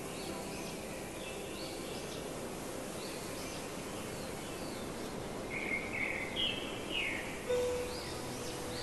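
Wild birds chirping in short repeated calls, with a louder run of chirps a little past the middle, over a steady background hiss.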